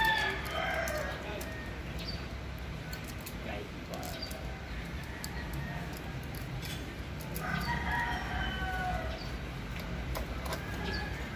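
A rooster crowing twice: one long call right at the start and another about seven and a half seconds in. Between the calls there are faint clicks of a saw chain being handled as it is fitted onto a chainsaw guide bar.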